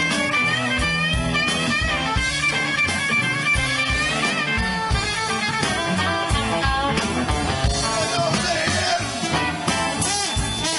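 Live electric blues band playing, led by an electric guitar whose notes bend and waver over bass and drums.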